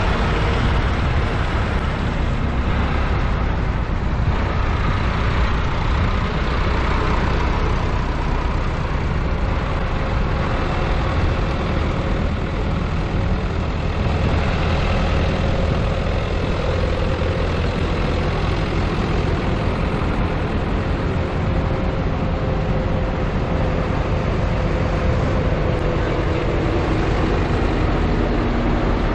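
Diesel tractor engines running as tractors drive past close by: a steady, heavy engine rumble with a faint whine that slowly drops in pitch in the second half.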